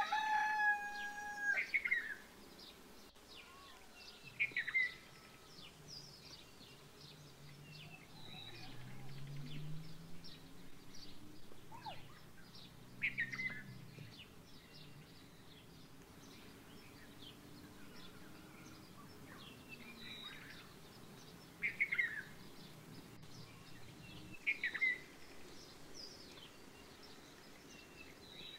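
Small birds chirping and twittering on and off, with sharp falling calls standing out every few seconds. A rooster crows at the very start, and a faint low hum rises and fades in the middle.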